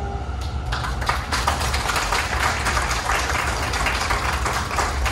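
Audience applauding at the end of a saxophone performance, the clapping breaking out about half a second in and then continuing steadily.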